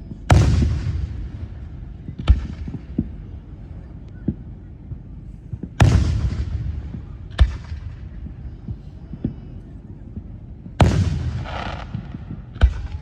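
Fireworks going off: three big booms about five seconds apart, each fading out slowly, and each followed about a second and a half later by a sharper, shorter bang, with smaller pops between.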